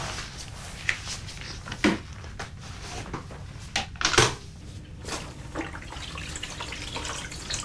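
A few sharp knocks and clatters over a steady low background hum, like household handling sounds in a small room.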